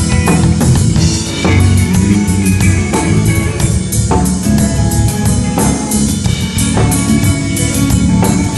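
Drum kit played in a steady groove, with bass and other pitched instruments playing along.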